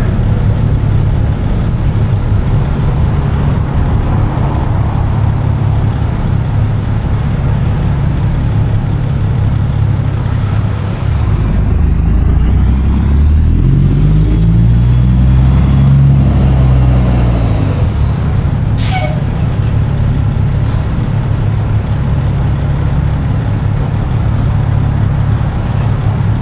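Caterpillar C15 Acert straight-six diesel of a truck running steadily under way. Its pitch rises and then falls once around the middle, and a single sharp click comes a little later.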